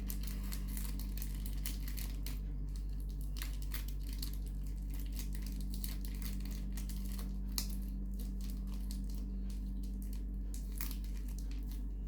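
Packaging being handled and pulled open: irregular crinkling and crackling, with scattered sharper clicks, over a steady low hum.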